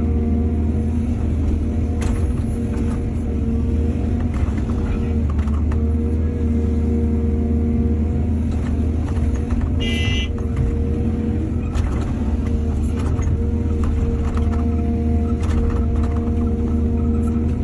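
Excavator's diesel engine running steadily, with scattered knocks and clanks and one brief high squeal about ten seconds in.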